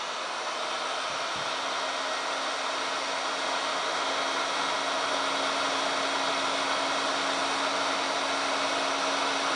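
Hot air gun blowing steadily: a rushing hiss with a steady low hum, still building slightly over the first few seconds as its fan comes up to speed.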